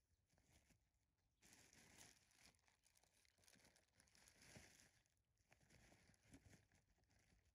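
Near silence, with faint rustling and crackling from about a second and a half in until about five seconds, and a few soft clicks.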